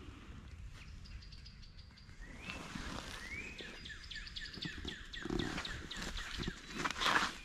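Songbirds singing: a quick high trill, then a run of rapid slurred notes that speeds up, over footsteps scuffing through dry leaf litter. Near the end, a loud rustle as leafy undergrowth brushes past.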